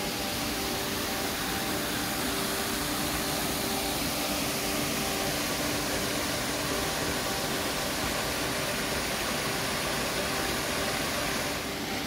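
Steady rushing of a shallow stream flowing over rocks.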